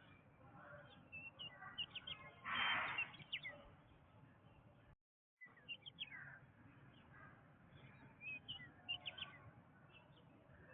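Tropical forest ambience of many birds chirping and calling, with short whistles and trills over a low background hiss. A louder, harsher call stands out about a quarter of the way in, and the sound cuts out completely for a moment just before halfway.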